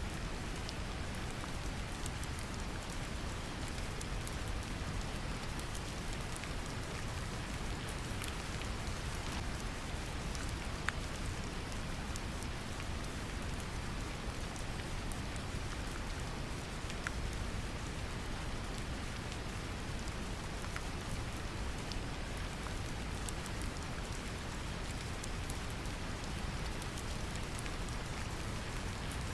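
Brown noise mixed with steady rain: a deep, even noise bed under the hiss of rainfall, with scattered small drop ticks and one louder tick about eleven seconds in.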